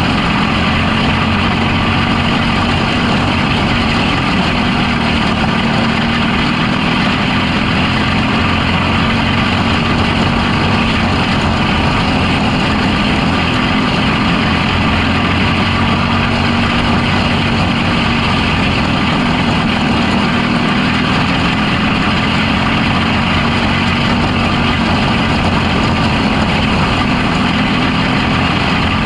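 Box stock micro sprint car's motorcycle engine running hard at racing speed, heard up close from the car. Its pitch stays high and steady, rising and dipping slightly with the throttle through the turns.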